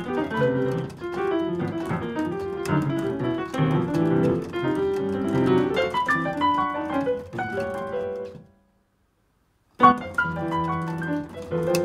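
Casio digital piano played with both hands: a busy flow of notes and chords that thins out and stops about eight and a half seconds in. After about a second of complete silence, the playing starts again with a loud struck chord.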